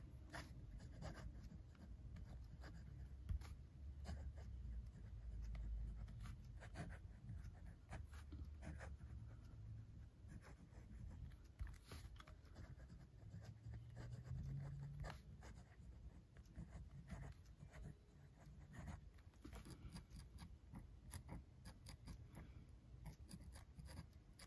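Faint scratching of a Montblanc Meisterstück 146 fountain pen's fine 18-karat gold nib on paper as handwriting is written, in small irregular strokes.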